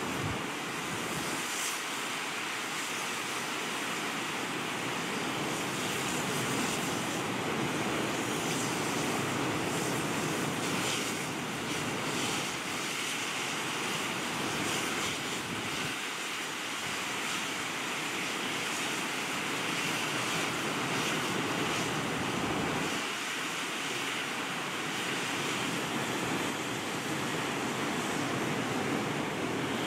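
Fast mountain river rushing over rocks: a steady, unbroken whitewater noise.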